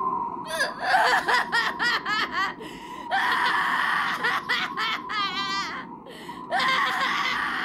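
A single voice breaks into fast, repeated laugh-like bursts, with long drawn-out cries about three seconds in and again near the end, and a very fast quavering run between them.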